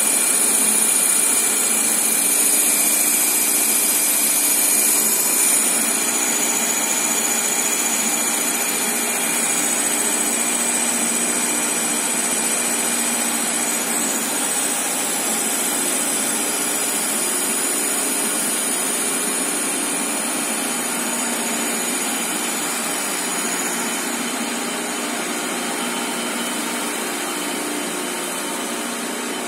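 Tissue-paper slitting machine running, its circular knives cutting the moving paper web: a steady, dense mechanical noise with a high whine over it.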